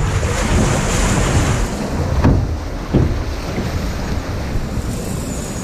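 Water rushing along a log flume channel around a floating log boat, with wind buffeting the boat-mounted microphone. Two sharp knocks come about two and three seconds in, under a second apart.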